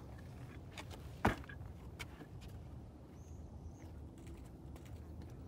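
Quiet outdoor ambience: a steady low rumble on the microphone, a single sharp click a little over a second in with a few fainter ticks after it, and a brief faint high whistle in the middle.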